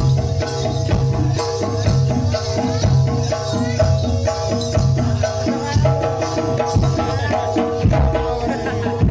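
Javanese gamelan-style music accompanying a kuda lumping dance: steady driving drumming and rattling percussion over held melodic tones.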